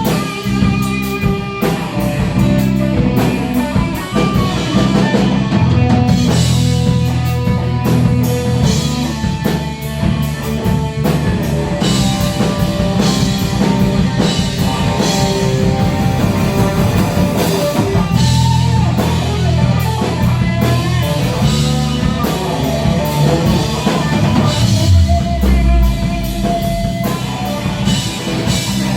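A rock band playing at a sound check, with a drum kit, electric guitar and bass together. A low bass note slides down about three-quarters of the way through.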